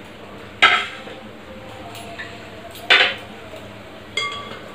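Dishes clattering as a plate and a glass bowl of dough are handled: two sharp clanks, about half a second and three seconds in, then a short ringing clink of glass just after four seconds.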